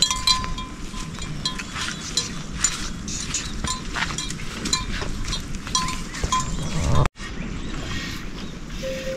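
Small livestock bells clinking irregularly as the animals move, many short ringing strikes. About seven seconds in the sound cuts off abruptly to a steadier background.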